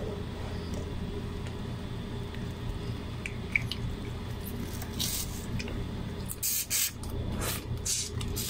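Hands handling cooked seafood and its plastic packaging: a few brief rustles and crackles from about five seconds in, over a steady low hum.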